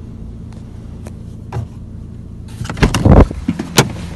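Steady low mechanical hum, with a burst of loud knocks and rubbing noises from about two and a half seconds in as the phone is swung around: handling noise.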